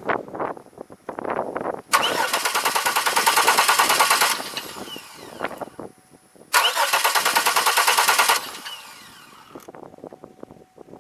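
2002 Chevy Malibu's starter cranking the engine in two bursts of about two seconds each, a fast even chugging, without the engine catching: it cranks but won't fire, and the spark tester shows no spark.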